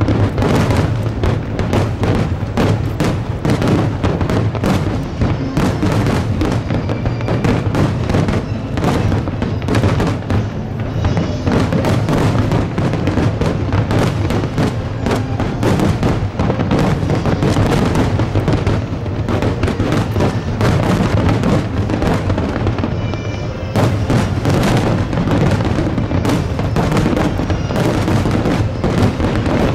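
Display fireworks bursting in a rapid, unbroken barrage, many sharp reports a second, with music playing underneath.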